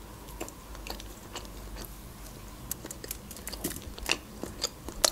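Close-miked chewing of a mouthful of khachapuri, the cheese-filled bread, heard as soft wet mouth clicks and smacks. The clicks come more often and louder in the second half.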